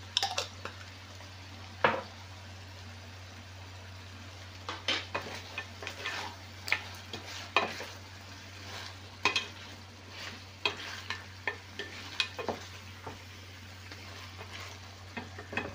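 A wooden spoon stirring shrimp and mussels in a sizzling sauce in a stainless steel pan, with irregular knocks and scrapes of the spoon against the pan, one sharp knock about two seconds in. A steady low hum runs underneath.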